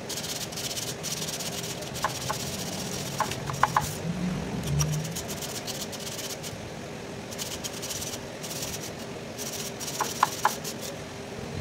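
A thin steel wire scratching and rattling in the brass tubes of an Isuzu truck radiator core as it is pushed through to clear them, in repeated scraping bursts with a few short high pings.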